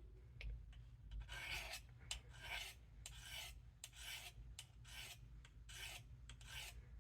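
Steel knife edge (the sharpened swedge of a Case USMC knife) drawn along ceramic honing rods in faint, even rasping strokes, about two a second, starting about a second in. The swedge is being lightly honed rather than ground on a stone.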